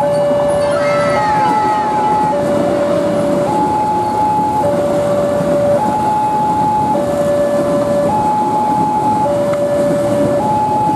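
Wantech railway level-crossing alarm sounding its two-tone warning, alternating between a lower and a higher tone, each held a little over a second, while the barrier is down for a train. Under it runs the steady rumble of a passing electric commuter train.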